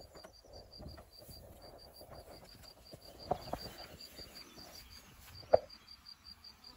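A cricket chirping steadily in meadow grass, short high pulses about six a second. A couple of light knocks come a little past halfway, and a single sharp knock, much louder than anything else, comes near the end.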